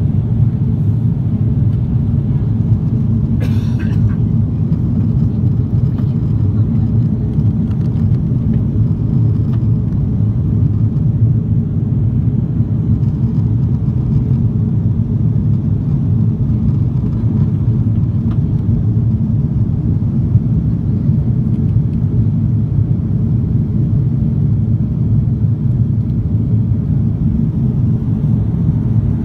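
Steady, deep cabin roar of an Airbus A340-300 in flight, from the four CFM56-5C4 turbofan engines and the airflow, heard inside the cabin at a window seat over the wing. A brief hiss sounds about three and a half seconds in.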